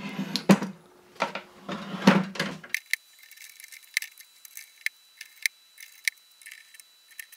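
Hand ratchet wrench clicking in short runs as screws are turned into a can crusher's sheet-metal housing, with the metal parts rattling as they are handled. Through the first few seconds there are fuller clattering strokes about once a second, then only scattered sharp clicks.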